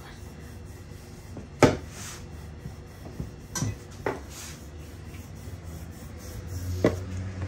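Wooden rolling pin rolling out dough on a stainless steel counter: a soft rubbing, broken by a few sharp knocks, the loudest about one and a half seconds in.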